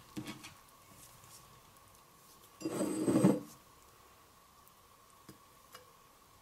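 Thick rye sourdough starter being scraped with a spatula from a bowl into a glass jar. A short, louder scrape lasts just under a second about halfway through, with a few faint taps and clicks around it.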